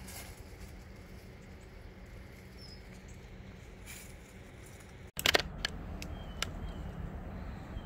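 Outdoor ambience: a steady low rumble with a few faint, short bird chirps, and a handful of sharp clicks and knocks a little after five seconds in.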